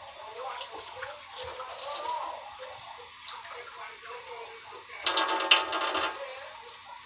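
Water running steadily from a tap, with a louder second of splashing and clattering about five seconds in.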